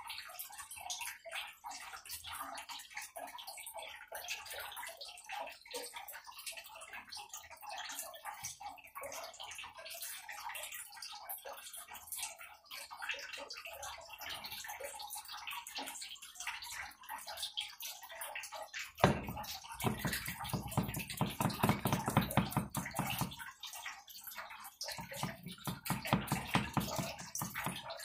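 A wet paint-laden foam brush dabbed over and over against a small wooden cutting board, a fast run of soft, wet pats, stippling on white paint for a rough textured finish. About two-thirds of the way in, louder rubbing and handling of the board takes over.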